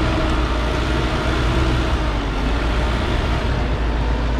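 Mercedes-Benz X-Class 250d pickup's four-cylinder diesel engine running steadily under load as the truck crawls up a steep off-road slope on mud-terrain tyres.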